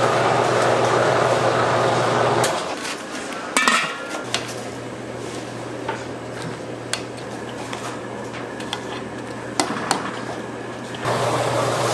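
Restaurant kitchen work: dishes and metal utensils clinking and knocking in scattered strokes over a steady hum, with a loud rushing noise at the start and again near the end.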